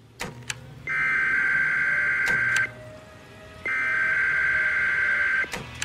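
Electronic alarm beeps: a steady high tone that sounds for nearly two seconds, breaks off for about a second and starts again. Short clicks and falling swoops come between the beeps.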